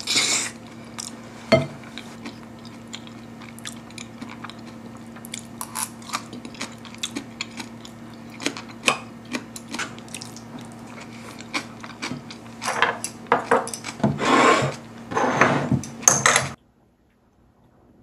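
A metal spoon clinking and scraping against a ceramic bowl while eating, with a steady low hum underneath. The scraping gets denser over the last few seconds, then everything stops abruptly.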